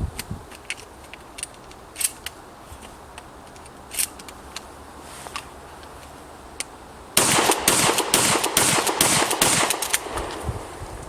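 Shotgun being fired: a few scattered sharp cracks, then, about seven seconds in, a loud, dense string of shots and their echoes lasting some three seconds.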